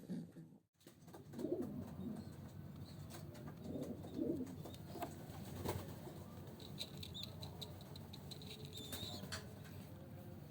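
Pigeons cooing in low, rising-and-falling calls, with scattered clicks and wing flutters. Thin high chirps come in the second half.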